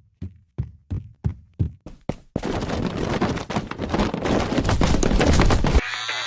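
Cartoon sound effects: a quick run of sharp taps, about four a second, for two seconds or so, then a loud, rough, noisy rush lasting about three and a half seconds that cuts off sharply, giving way to a held musical tone near the end.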